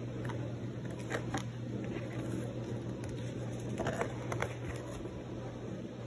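Handling noise from a paper promotional card and a cardboard box: a few short rustles and taps, clustered about a second in and again about four seconds in. A steady low hum from the room runs underneath.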